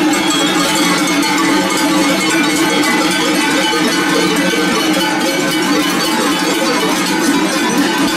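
Many cowbells on a herd of cattle clanging continuously and unevenly as the cows walk past.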